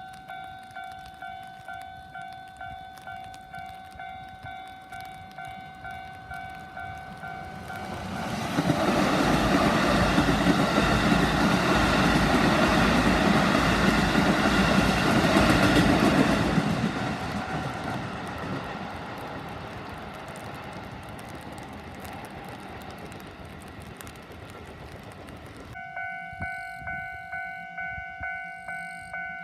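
Japanese railway level-crossing warning bell ringing in repeated strokes, a little over two a second. About eight seconds in a train passes for around eight seconds, its rumble drowning out the bell, then dies away. Near the end the sound cuts to another crossing's bell, louder and at a different pitch.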